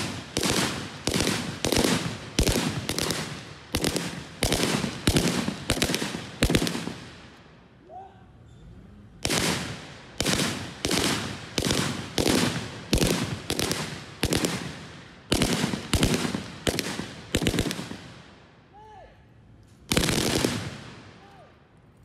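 Rifles fired by several police officers in a shooting drill: a steady run of single shots about two a second, each ringing out briefly, with a short pause about 7 seconds in and another near the end before one last shot.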